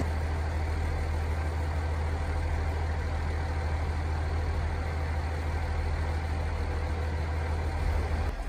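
Kiha 48 diesel railcar idling at a standstill: a steady low engine hum.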